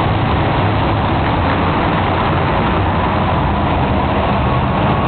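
Monster truck engines running together, a steady loud din.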